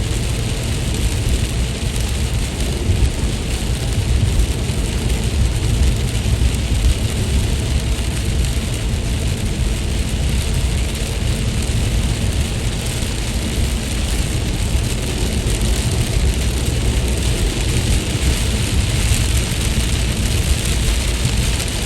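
Steady rainfall, an even hiss of rain with a heavy low rumble underneath, with no change through the whole stretch.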